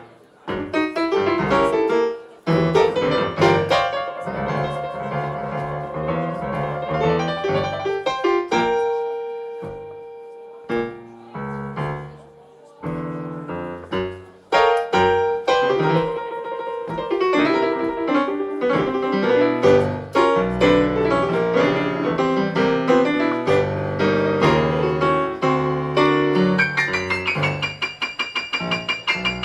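Blues piano played on a stage keyboard, phrases broken by a few short pauses, ending in fast repeated notes.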